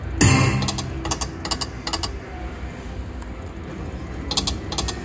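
Konami Red Fortune video slot machine's spin sounds: a burst as a spin starts, then a quick run of sharp clicks as the five reels stop one after another. The clicking runs twice, about a second in and again near the end.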